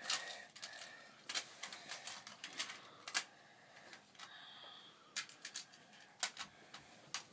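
Magna-Tiles magnetic plastic building tiles clicking and clacking against each other as they are picked up and snapped together edge to edge, in irregular sharp clicks with a few louder snaps.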